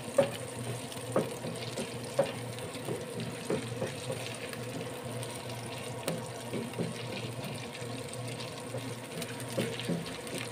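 Field snail meat frying in oil in a non-stick pan, a steady sizzle as it turns golden, with occasional taps and scrapes of a wooden spatula stirring it. A cooker hood fan hums steadily underneath.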